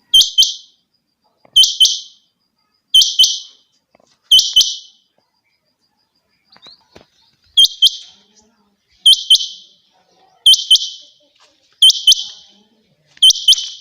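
Rain quail calling: a loud, sharp double note with a short buzzy tail, repeated about once every 1.4 seconds, nine times, with a pause of a few seconds after the fourth call.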